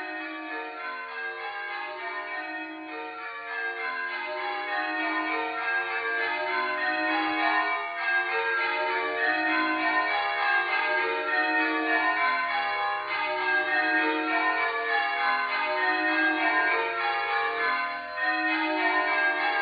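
Church tower bells change ringing, each bell struck in turn in repeated descending rows. The ringing grows louder about three to four seconds in.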